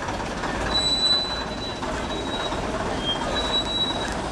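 Vintage London Transport single-deck bus moving off slowly with its diesel engine running, and several short high squeals from its brakes.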